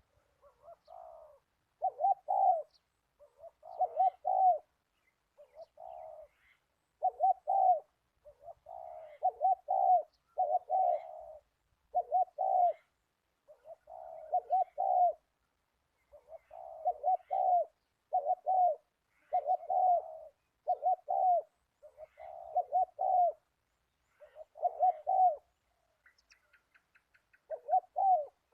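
A dove cooing over and over, each call a short run of quick rolling notes, repeated every second or two with brief pauses between.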